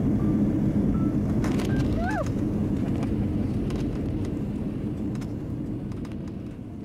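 Jet airliner cabin noise heard from a window seat: the steady low rumble of the engines and airflow, fading out gradually toward the end.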